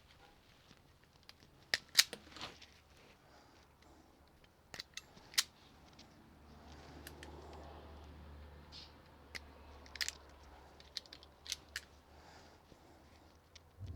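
Sharp snips and clicks of hand wire cutters or strippers working on small-gauge electrical wire, in small clusters with pauses between them.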